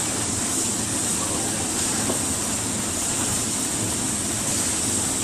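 Steady machinery hiss and hum of a pipeline welding shop, even throughout with no distinct knocks or strikes.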